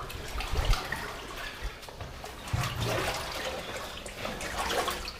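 Water sloshing and splashing irregularly as someone wades through shallow floodwater in a tunnel.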